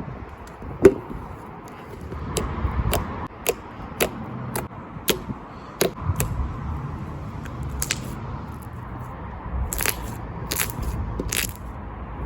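Slime being pressed and worked by hand, giving sharp, crisp crackling pops at irregular intervals: about two a second in the first half, fewer in the middle, then a quick cluster near the end.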